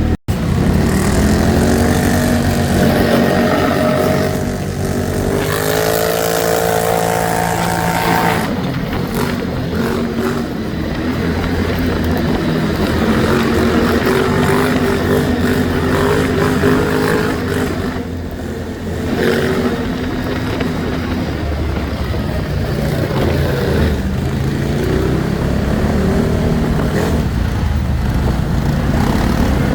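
ATV engines running off-road, revving up and easing off with the throttle so the pitch keeps rising and falling, with one clear rev-up about a quarter of the way in.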